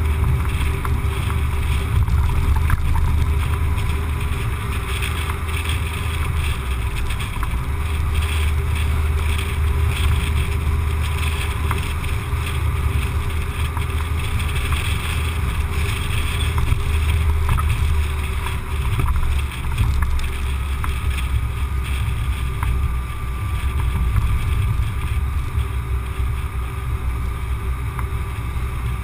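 Steady low rumble of a car driving on the road: road and wind noise, with faint steady tones above it.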